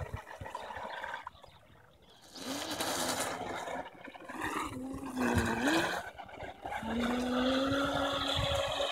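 Surge Crusher RC catamaran's 2000kv electric motor whining as the throttle is worked, with water splashing; the pitch dips and swings around the middle and climbs steadily near the end.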